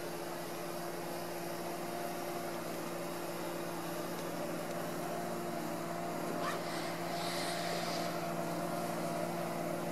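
A steady low mechanical hum over a constant hiss, with a brief faint high sound a little past the middle.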